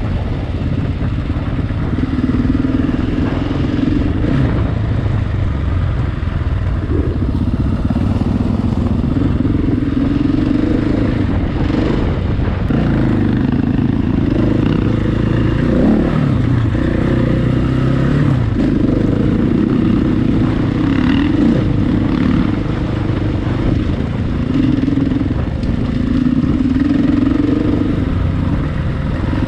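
Single-cylinder enduro motorcycle riding off-road. Its engine note rises and falls over and over as the throttle opens and closes, with repeated upward sweeps in pitch in the middle of the stretch.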